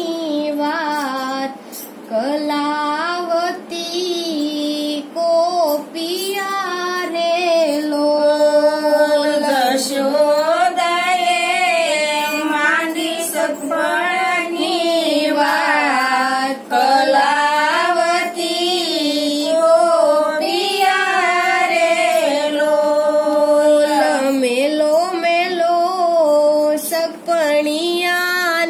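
Women's voices singing a Gujarati devotional bhajan in one continuous melodic line.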